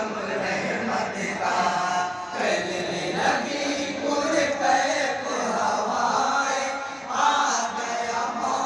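A group of men's voices chanting a devotional Islamic kalam (naat) together.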